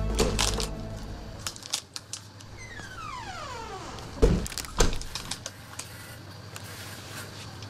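Handling noises as goods are taken from a supermarket shelf: scattered clicks and rustles, a tone sliding down in pitch, then two heavy thumps about half a second apart near the middle.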